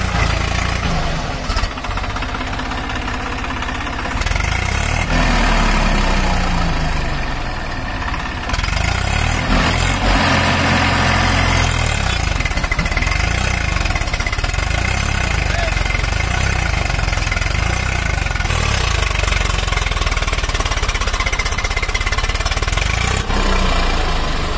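Swaraj 744 FE tractor's three-cylinder diesel engine running hard under load, the revs rising and falling over and over as the tractor works its way out of deep mud.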